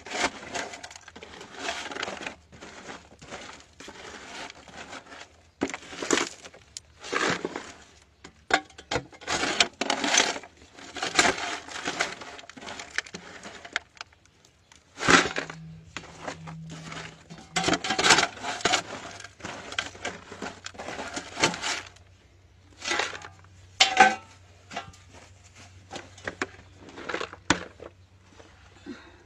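Digging by hand in a cramped earth-and-rock tunnel: irregular scraping and crunching of soil and stones being scooped into a bucket, in short bursts with pauses between.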